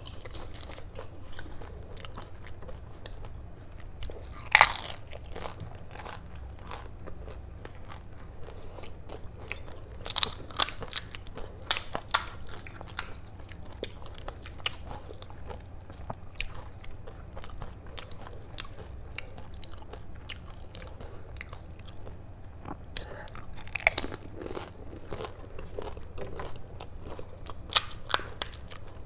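Crisp, hollow pani puri shells crunching: bitten and chewed, and cracked open with fingers for filling. It is a run of sharp crackling crunches, loudest about four and a half seconds in, around ten to twelve seconds, and again near twenty-four and twenty-eight seconds.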